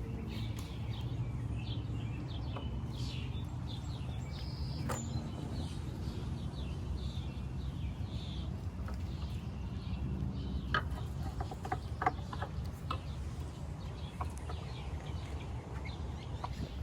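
Small birds chirping in short, scattered calls over a steady low rumble. Several sharp clicks of hand tools on engine parts come about two-thirds through.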